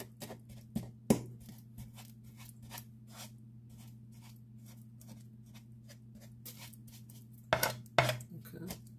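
Wooden spoon tapping and scraping on a non-stick pan, mashing a chicken bouillon cube into a little oil, with a quick run of louder strokes near the end. A steady low hum runs underneath.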